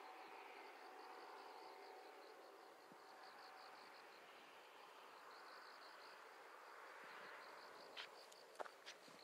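Faint insect chirring, a fast steady pulsing at high pitch, over quiet rural air. In the last second or so a few footsteps crunch on dry grass and dead leaves.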